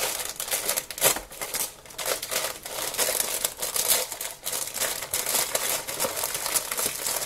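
Plastic wrapper of a stack of Marie biscuits crinkling and rustling irregularly as it is handled, with a few sharp clicks.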